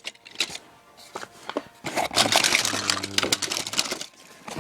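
Toy packaging being handled: a few sharp clicks, then a stretch of dense crinkling and crackling about two seconds in.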